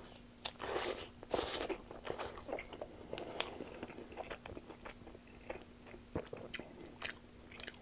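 Close-miked biting into a slice of Pizza Hut pepperoni pizza, with two louder crunches about a second in, then chewing with many small crackly clicks. A faint steady hum runs underneath.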